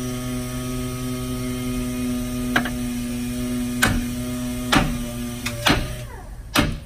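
A big hammer striking the steel steering knuckle of a 2005 Toyota Highlander five times, about a second apart, to shock the tie rod end's tapered stud loose from the knuckle. A steady hum runs under the first blows and stops shortly before the last one.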